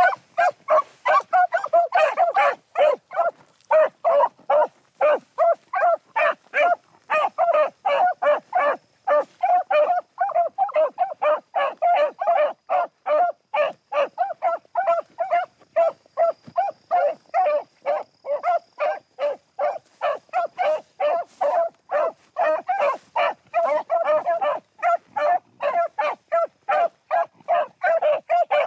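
Beagles baying in rapid, nearly continuous barks, several a second, as they run a rabbit's scent trail.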